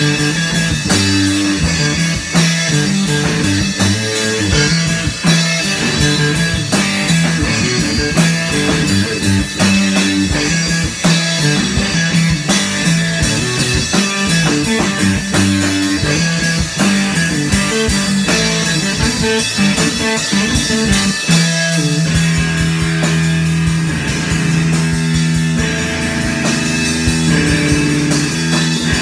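A guitar and drum kit playing rock together live in a small room.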